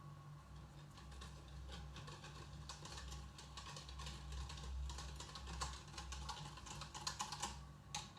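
Dry ingredients, flour and sugar, being mixed by hand in a bowl: a fast, irregular run of light clicks and rustles that stops shortly before the end.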